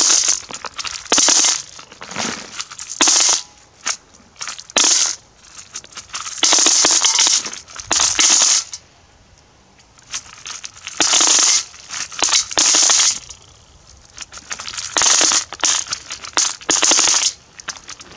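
Russian ruble coins poured in spurts from a plastic jug into a galvanized metal bucket, landing on a pile of coins with a loud jingling metallic clatter. The pours come in about a dozen bursts of a fraction of a second to two seconds each, with a longer pause about nine seconds in.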